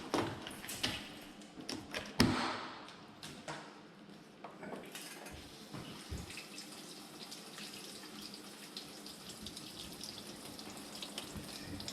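A few sharp clicks and knocks, the loudest about two seconds in. Then a steady hiss of water running into a GE dishwasher's tub as it starts to fill: the sign that the replaced door switch now lets the machine start.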